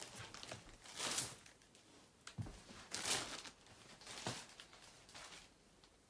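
Embroidered silk dress fabric rustling as it is handled and laid out, in several short swishes.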